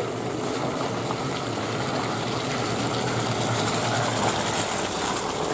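Vehicle engine running steadily while tyres churn through wet mud and muddy water, growing slightly louder toward the end.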